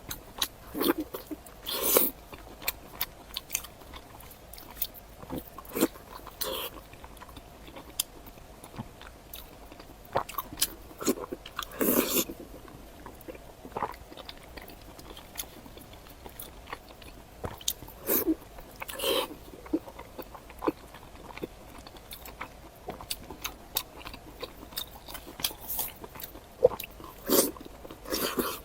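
Close-miked eating sounds: a person biting and chewing food, with many small wet clicks and a few louder bites spread through.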